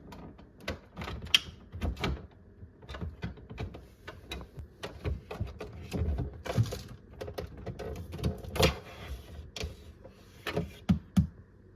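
Irregular clicks and knocks with a few short rustles, from a refrigerator water filter being handled and changed.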